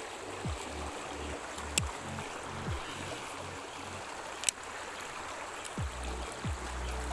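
Fast-flowing river water rushing steadily, under background music with a deep bass beat that drops in pitch on each hit. Two sharp clicks sound about two seconds in and again midway.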